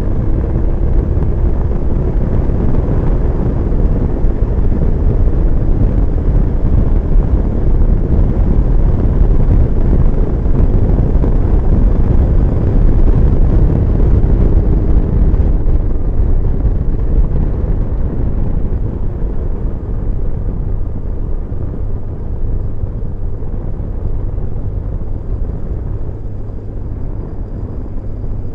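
Wind rushing over a helmet-mounted camera while riding a BMW R1150GS motorcycle, its boxer-twin engine running steadily underneath. The rush eases somewhat about halfway through.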